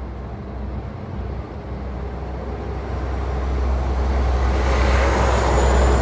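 Rushing noise of an approaching vehicle, growing steadily louder.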